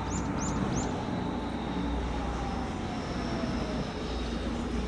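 EH500 electric locomotive hauling a freight train as it approaches: a steady low rumble of the train running, with a faint, slowly falling tone. Three short high chirps sound in the first second.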